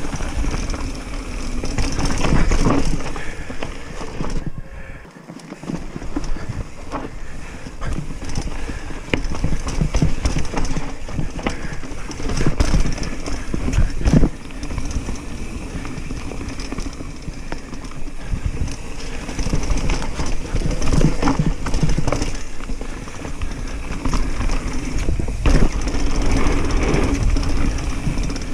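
Commencal Meta chromoly hardtail mountain bike descending a dirt trail at speed: tyres rolling and crunching over dirt and roots, and the bike rattling and clattering over the bumps. Briefly quieter about five seconds in.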